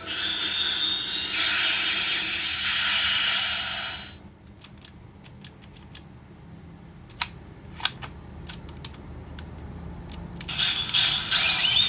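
Bandai DX Ultraman Ginga Spark toy playing a loud electronic sound effect from its speaker for about four seconds, then a quieter stretch of plastic clicks from its mechanism and handling, two sharper clicks close together. Another electronic sound effect starts near the end.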